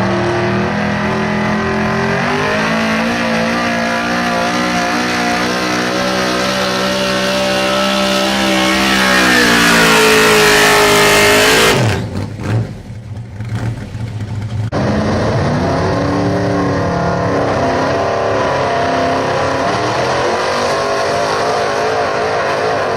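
Super stock 4x4 pulling truck engine running flat out under load, its pitch climbing and getting louder for the first twelve seconds. The sound then drops away suddenly. After a rougher, quieter gap of about three seconds, a pulling truck engine comes back in abruptly at high revs.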